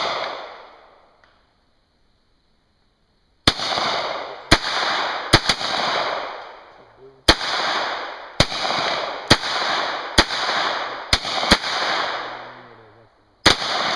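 .22-calibre semi-automatic pistol firing about ten shots at uneven intervals of roughly a second, starting about three and a half seconds in, with two shots in quick succession twice. Each shot is a sharp crack followed by a long echo that fades out.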